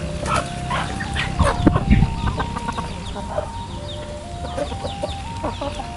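Chickens clucking as they feed, many short calls overlapping, with a couple of low thumps about a second and a half to two seconds in.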